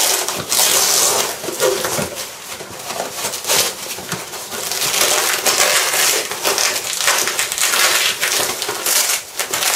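Hook-and-loop (Velcro) fastening on a nylon plate carrier and cummerbund being ripped apart in long rasping pulls, with the fabric and webbing rustling as the cummerbund comes free.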